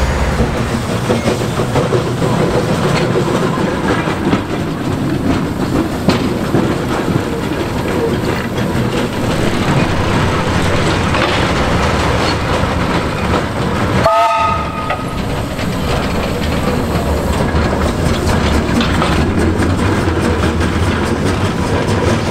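1891 Baldwin steam tram running along its tracks with a steady running noise; about two-thirds of the way through it gives one short blast of its whistle.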